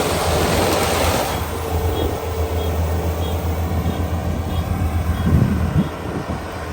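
Kubota ER572 combine harvester running with a steady low engine hum. A rushing noise over the hum drops away about a second in, and faint high beeps then repeat roughly every half second or so for a few seconds.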